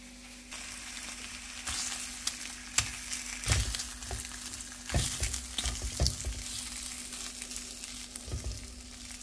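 Rashers of back bacon sizzling in a non-stick frying pan, starting about half a second in; the water has boiled off and they are frying in their own fat. A few sharp taps come as tongs turn the rashers against the pan.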